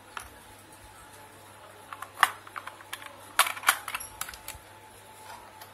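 An Intel processor being seated in an LGA1155 socket and the socket's metal load plate and retention lever clamped down. It gives a few sharp clicks about two seconds in and a quick cluster of clicks and snaps around three and a half to four and a half seconds.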